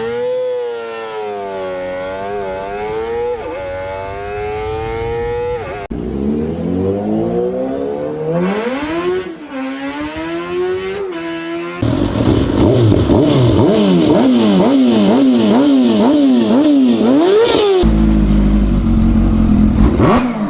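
Kawasaki superbike exhausts revving, in four short clips cut together: throttle blips rising and falling in pitch, and in the third clip a quick series of sharp revs up and down, about one and a half a second.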